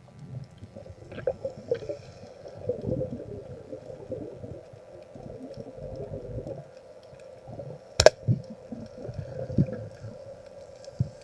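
Muffled underwater water noise, irregular sloshing and gurgling picked up by a submerged camera, with one sharp click about eight seconds in.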